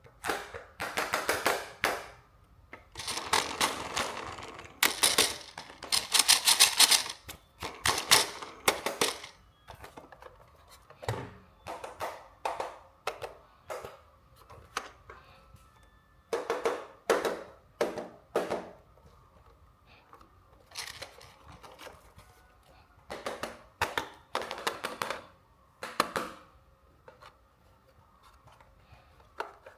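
Toy RC car packaging being handled and unpacked: repeated bursts of rustling and crinkling with runs of small clicks and knocks, separated by short quiet gaps.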